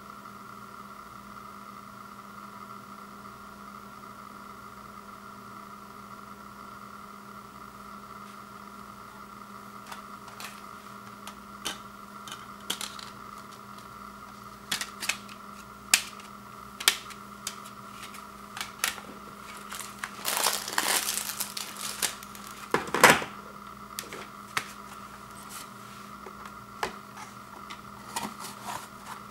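A steady background hum, then, from about ten seconds in, a run of sharp clicks and knocks of thin clear plastic slim CD cases being handled and stacked. A scraping rustle comes about twenty seconds in, and the loudest click just after it.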